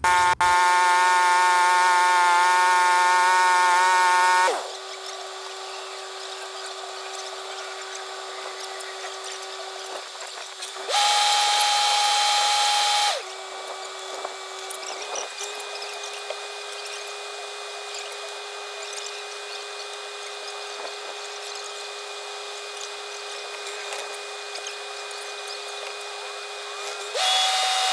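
A steady mechanical whine holding one constant pitch, like a running power tool. It is loud for the first four seconds, drops back, and swells again for about two seconds near the middle.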